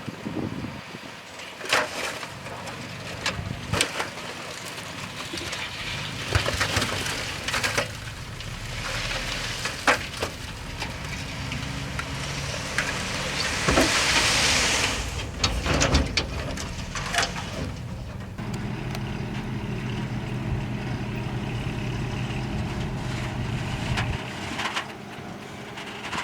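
Heavy diesel earthmoving machinery working dirt, with repeated sharp metal clanks and knocks. There is a burst of hiss about 14 seconds in, then a steady engine drone from about 18 seconds that cuts off shortly before the end.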